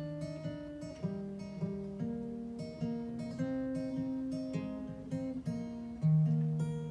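Solo acoustic guitar, a very old instrument, playing an instrumental passage between verses: a steady picked pattern of single notes about two a second, with a louder low bass note struck about six seconds in.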